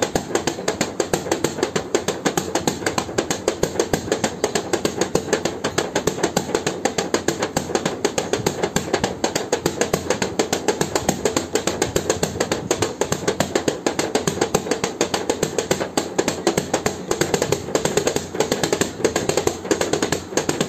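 A rapid, steady series of sharp taps, several a second.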